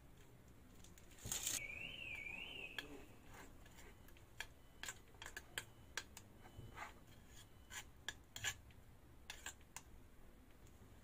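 Faint clicks and light clinks of kitchen tools and metal cake rings handled on the work board, with a louder burst of noise about a second in followed by a short squeak that wavers up and down twice.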